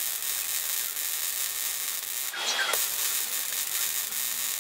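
MIG welding arc running with a steady hiss as a bead is laid along the edge of 5 mm steel plate; it stops for a moment about two and a half seconds in, then starts again.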